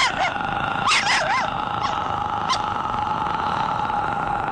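A dog whining in wavering, rising-and-falling whimpers with a few sharp yelps in the first second and a half, over a steady high drone.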